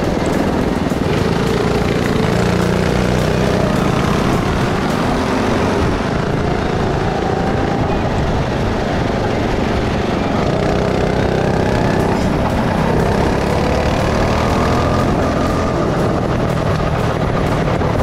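Go-kart engine running, its pitch rising and falling again and again as the kart speeds up and slows, over a steady rushing noise.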